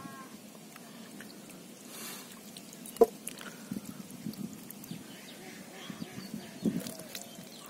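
A hand sloshing and squelching through shallow muddy water in a hole while feeling for catfish, with small irregular splashes. One sharp, loud knock about three seconds in.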